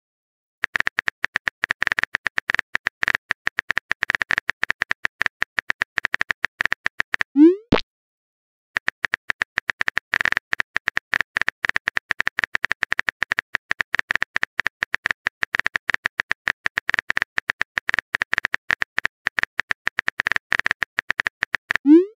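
Rapid keyboard-typing clicks, the typing sound effect of a chat app. A short rising bloop of a message being sent comes about seven seconds in and again at the very end, and the typing pauses for about a second after the first bloop.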